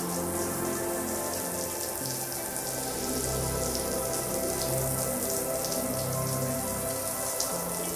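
Water sprinkling from a plastic watering can's rose onto a soaked, soapy rug, a steady pattering spray.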